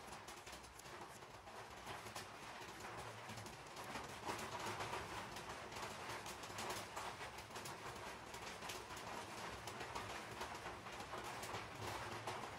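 Small scraping and tapping sounds of hand food preparation: a vegetable peeler on a cucumber, then fruit and tools handled at a wooden chopping board. Birds call in the background.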